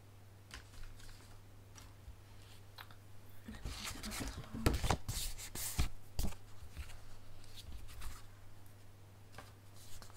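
Card stock and paper being handled on a desk: rustling, sliding and light taps, busiest for a few seconds in the middle, with scattered clicks before and after.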